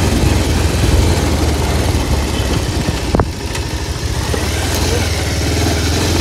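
Motorbike engine running while riding over a rough dirt track, with a steady low rumble and one sharp knock about three seconds in.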